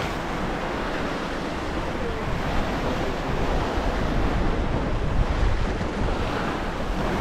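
Ocean waves washing against coastal rocks, a steady surging wash, with wind buffeting the microphone.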